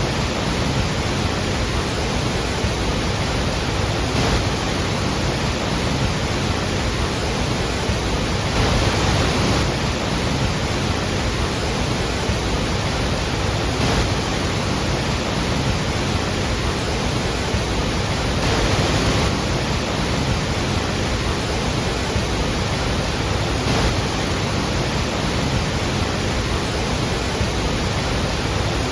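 The roar of a large waterfall: a steady, even rush of falling water with slight swells now and then.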